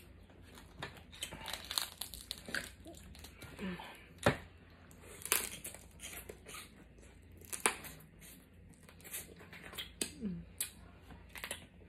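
A plastic seafood-boil bag crinkling as a hand rummages through it, mixed with scattered sharp clicks and cracks as snow crab legs are handled and eaten. Several louder snaps stand out, one a little past four seconds in and another near eight seconds.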